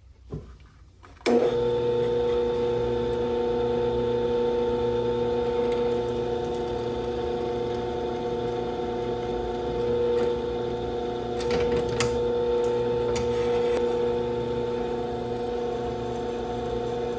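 Electric drill motor starting about a second in and running steadily while drilling pinholes through a steel knife tang, with a few sharp ticks about two-thirds of the way through.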